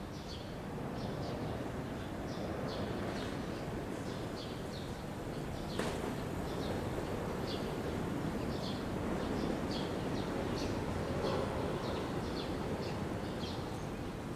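Small birds chirping repeatedly, about two short chirps a second, over a steady background hum, with one sharp click about six seconds in.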